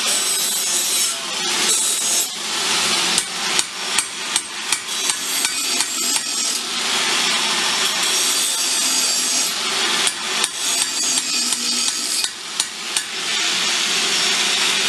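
Hand hammer striking steel on an anvil in two runs of quick blows, about two to three a second, over a steady hissing noise.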